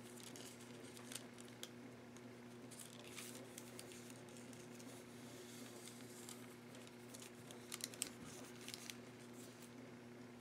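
Faint rustling and light ticks of a sheet of tracing paper being positioned and smoothed by hand over damp leather, with a few sharper taps about eight seconds in, over a steady low hum.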